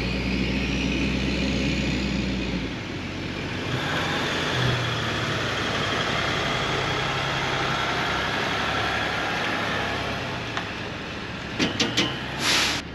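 Pickup trucks passing on asphalt: a steady low engine hum at first, then a white pickup towing a raft trailer rolls by, its engine and tyre hiss rising and fading. A few sharp knocks and a short rustle near the end.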